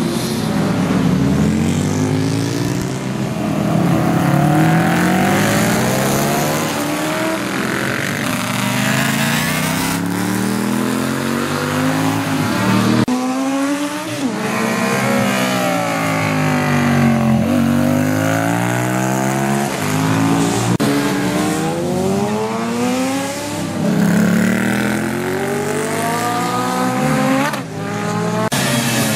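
Classic racing motorcycles of over 350 cc, built up to 1970, passing one after another under hard acceleration. The engine pitch rises as they rev through the gears and swings down as each one goes by.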